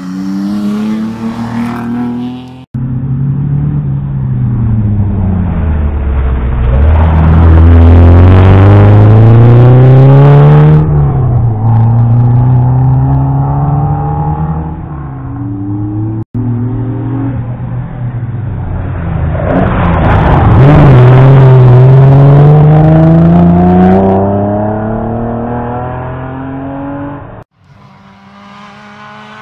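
Historic rally cars racing past one after another, engines revved hard. Their pitch climbs through each gear and drops back at every shift, swelling loudest as each car goes by and then fading.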